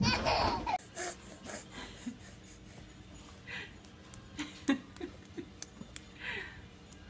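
A toddler laughing in a high squeal for the first second or so, then a baby's soft vocal sounds with a few faint sharp taps.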